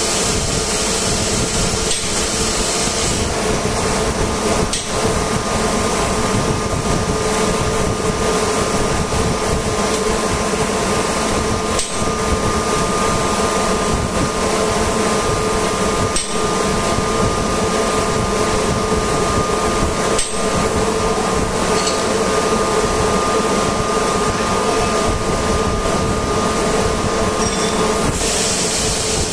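Steady, loud machinery hum with two held tones, from running equipment in a compressor workshop, with a few light hammer taps on metal every few seconds.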